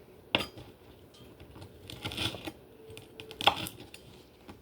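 Kitchen handling sounds during salad preparation: a sharp knock near the start and a louder one near the end, with a crinkling rustle of packaging in between.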